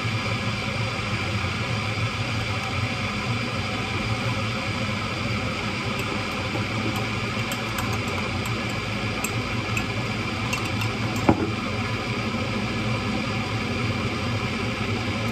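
A steady droning hum throughout, with light clinks of a teaspoon against a mug as a drink is stirred about halfway through, and one sharp knock a little later.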